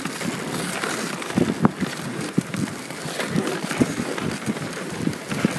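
A dog sled gliding over packed snow behind a running dog team: the runners hiss and scrape steadily, with irregular knocks and clicks from the sled.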